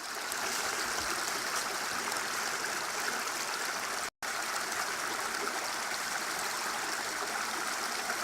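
A small stream running steadily over rocks, cutting out for an instant about four seconds in.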